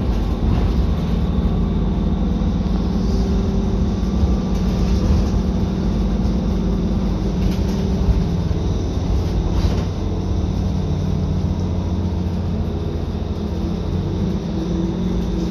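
Mercedes-Benz Conecto city bus heard from inside the passenger cabin while under way: a steady engine drone with road rumble. The engine note shifts a little about two-thirds of the way through.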